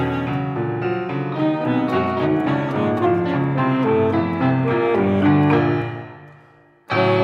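Contemporary chamber ensemble of alto saxophone, electric guitar, piano and marimba playing a dense passage of rapid notes. The sound dies away about six seconds in, then a sudden loud sustained chord comes in near the end.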